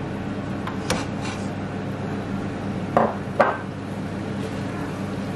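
A glass bowl and kitchen utensils knocking against a nonstick frying pan as diced cooked chicken is tipped in: three short knocks, about a second in and twice close together near the middle, over a steady low hiss.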